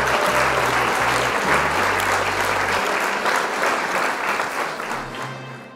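Applause from many people clapping, with a low bass line of background music under it for the first few seconds. The clapping fades away near the end.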